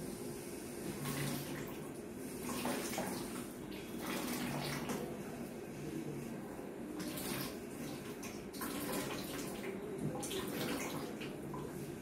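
Lukewarm salt water being forced out through the nose into a plastic bucket during shitkrama neti, one nostril at a time: a series of short nasal gushes of water and breath splashing into the bucket, roughly every one to two seconds.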